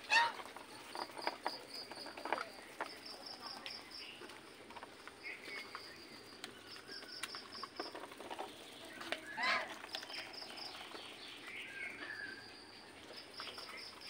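Domestic geese calling as they feed: a loud honk right at the start and another about nine and a half seconds in, with softer calls and short clicks of bills pecking at grain between. A high pulsing chirp repeats in short trains underneath.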